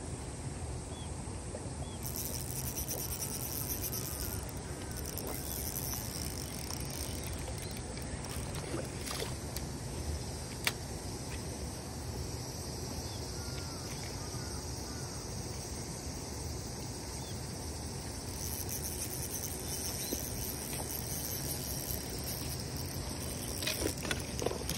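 Outdoor ambience at a trout fishing pond: a steady low rumble, with a high-pitched insect buzz that comes in for a couple of seconds early on and again for several seconds near the end, and one sharp click about eleven seconds in.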